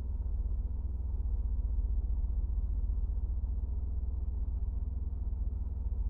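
A steady low drone that holds the same pitch and level throughout, with no other events.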